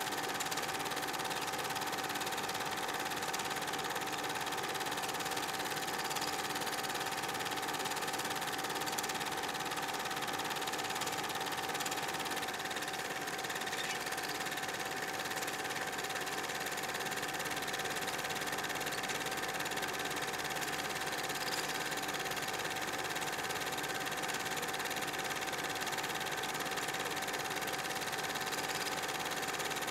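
Steady mechanical whir of a film projector running, with a constant whine over it.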